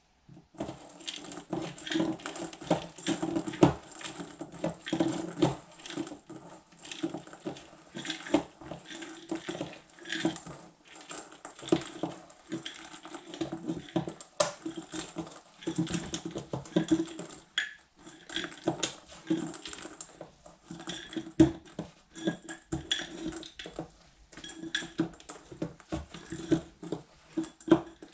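Hands kneading a sticky marzipan and raisin filling in a stainless-steel mixing bowl. There is a busy, irregular run of small knocks, clinks and rubbing against the metal bowl as it shifts on the counter.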